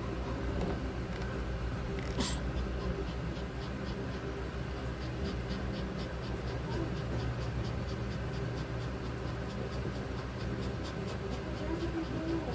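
Shih-tzu in labour panting in quick short breaths, about three a second, while being handled. There is one sharp rustle of fur or towel about two seconds in, over a steady low hum.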